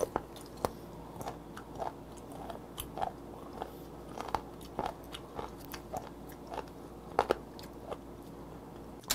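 Close-miked chewing of a mouthful of seafood: irregular wet, crunchy clicks of the teeth and mouth, a few every second.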